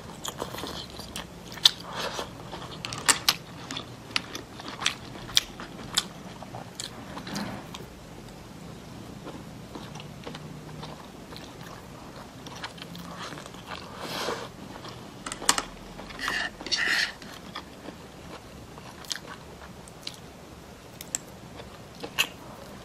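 Close-up eating of steamed razor clams: the meat sucked off the shells and chewed, with many sharp clicks and a few longer slurps about two thirds of the way through.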